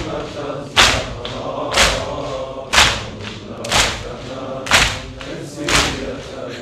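Six chest-beats (latm) by a group of mourners, struck together about once a second in a steady beat, under low, held choral voices.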